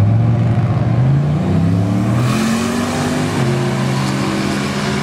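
Two drag-racing vehicles, a car and a pickup truck, launch off the start line and accelerate hard down the strip. Their engine note climbs over the first two seconds, then drops and levels out as they pull away.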